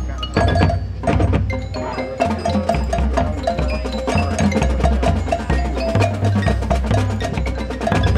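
Marching band playing, with marimbas and other mallet percussion striking quick ringing notes over low sustained bass notes.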